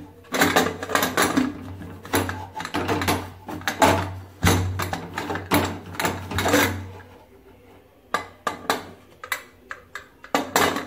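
Aluminium pressure cooker lid being fitted and locked on, a run of metal clacks and scrapes as the handles are twisted together and the whistle weight is set on the vent. The clatter pauses about seven seconds in, and a few lighter clicks follow near the end.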